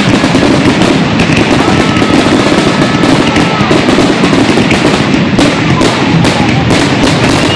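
Aerial firework shells bursting in a rapid, continuous barrage, the loud reports overlapping without a break.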